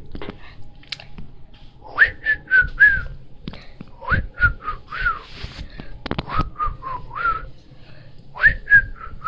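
A girl whistling short phrases of a few quick notes each, the notes sliding up and then settling, with a breathy edge to the tone.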